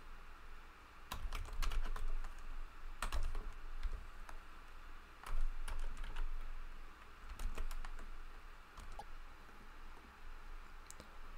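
Typing on a computer keyboard: scattered keystrokes in short clusters, with pauses between.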